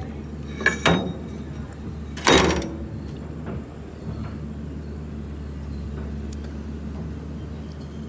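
Two short metallic clatters about a second and a half apart, the second the louder and slightly longer, over a steady low mechanical hum.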